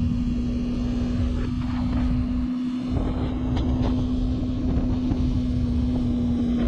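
Yamaha YZF-R3's 321cc parallel-twin engine running at a steady, unchanging pitch while the bike cruises at constant speed, with wind buffeting the rider's microphone.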